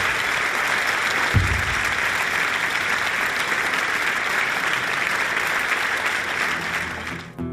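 Audience applauding, the clapping fading away near the end as an instrument starts to play; a single low thump about a second and a half in.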